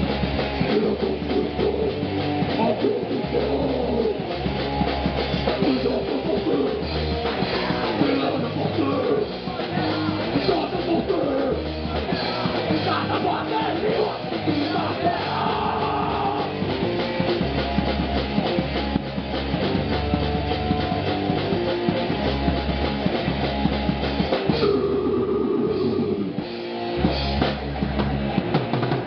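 Hardcore punk band playing live, with electric guitar and drum kit. Near the end the drums stop for about two seconds while the guitar carries on, then the full band comes back in.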